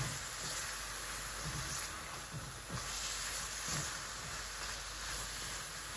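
Chopped okra and gourd frying in oil in a nonstick pan with a steady sizzle, stirred with a slotted spatula that gives a few soft scrapes and knocks.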